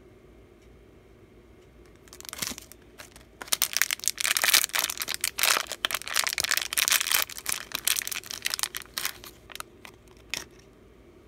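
Crinkling of a polypropylene blind-bag wrapper crumpled in the hands: a fast, irregular crackle that starts about two seconds in and stops shortly before the end.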